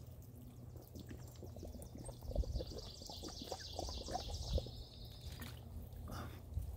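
A thirsty person gulping water from a plastic bottle: a run of quick swallows from about two seconds in to about five seconds in.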